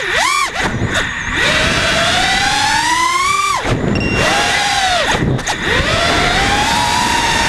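Nighthawk FPV racing quadcopter's brushless motors whining with throttle. The pitch climbs steadily, drops sharply about three and a half seconds in, dips briefly again a little after five seconds, then climbs once more.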